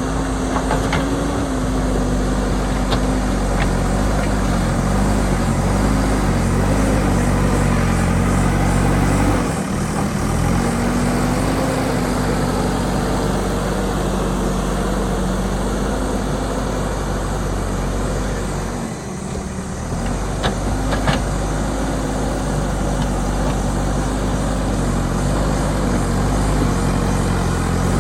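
JCB backhoe loader's diesel engine running steadily, its pitch wavering up and down. It dips briefly about ten seconds in and again about nineteen seconds in, and a couple of sharp clicks sound around twenty-one seconds.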